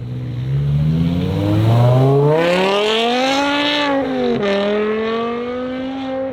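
Car engine accelerating hard: the revs climb steadily for about four seconds, fall sharply at an upshift about four and a half seconds in, then climb again in the next gear.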